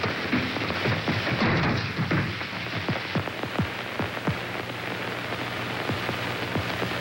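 Hiss and dense irregular crackle of an old optical film soundtrack, over a steady low hum.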